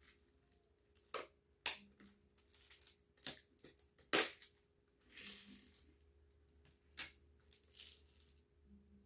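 Hard plastic of a Sanol moisture-absorber tub clicking and crackling as its lid is pried off and handled. There is a series of sharp snaps, the loudest about four seconds in, with short crinkly rustles between them.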